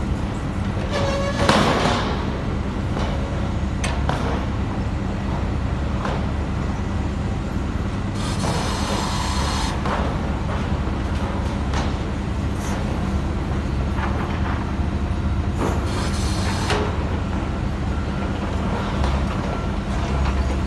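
Earth drill piling rig running with a steady low engine drone. A loud metallic clank comes about a second and a half in, with a few lighter knocks, and two short hisses come near the middle and again later.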